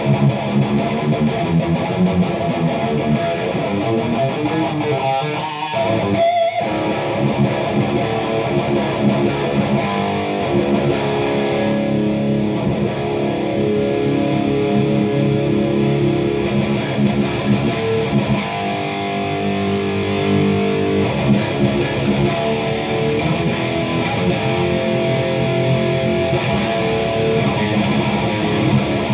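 Electric guitar played through a PRS MT-15 tube amp head on its red (lead) channel into a 4x12 cabinet: chords and riffs, with several long held chords in the middle and a short break about six seconds in.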